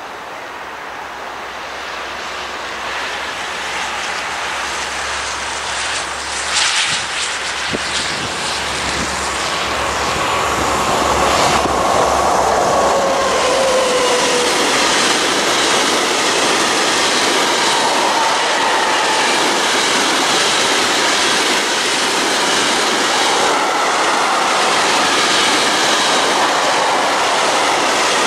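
Diesel freight locomotive approaching and passing close by, growing steadily louder over the first dozen seconds, then the steady rolling noise of its train of covered hopper wagons going past.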